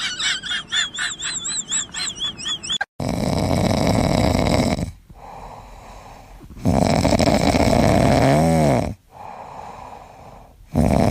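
Quick, wavering high squeaks, about four a second, cut off about three seconds in. Then come loud, rough snores from a sleeping animal, each about two seconds long, three of them about four seconds apart.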